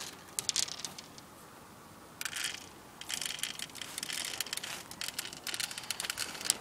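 Plastic BBs rattling and clicking as they are loaded into an airsoft P90's magazine: a few clicks, a short rattle, then about three and a half seconds of dense, rapid rattling.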